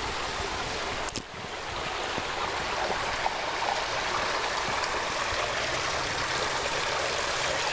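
Water running and splashing steadily over the rocks of a small recirculating garden stream, with a short dip in level about a second in.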